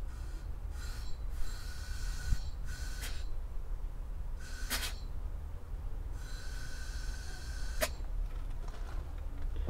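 Compressed-air line blowing dirt off a chainsaw's carburettor area in about six hissing blasts, each with a faint whistle, two of them longer than a second. A sharp click near the end.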